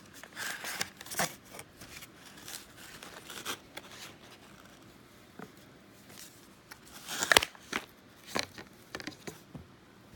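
Scattered rustles, scrapes and clicks of things being handled close to the microphone, with one sharper knock about seven seconds in.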